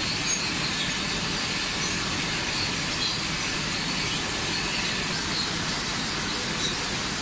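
Automated tortilla production line running: conveyor belts and machinery make a steady, even mechanical noise with no distinct knocks or changes.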